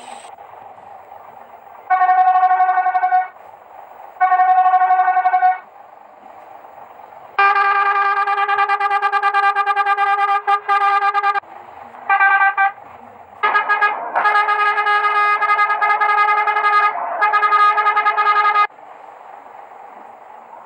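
Intercity bus air horn (klakson) sounding a sequence of blasts: two short blasts about two seconds apart, one long blast of about four seconds, a brief toot, then a run of several blasts with short breaks between them.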